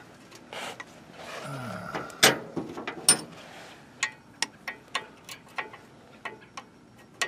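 Open-end wrench clinking on a nut on an engine, metal on metal: a couple of louder knocks, then a string of short sharp ticks from about four seconds in as the wrench is fitted and turned.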